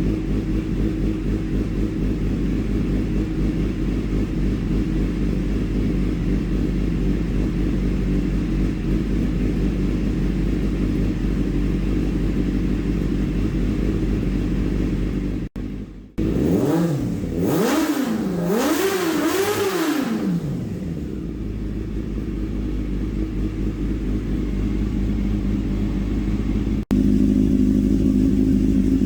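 Honda motorcycle engine idling steadily. About halfway through, the throttle is blipped twice, the revs rising and dropping back to idle each time.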